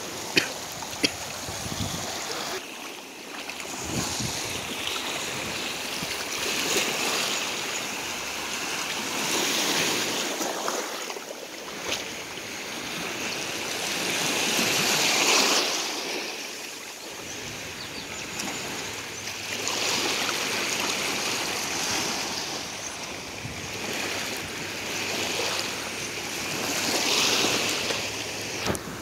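Small waves washing in at the water's edge, a hiss that swells and fades every few seconds. Two sharp clicks near the start.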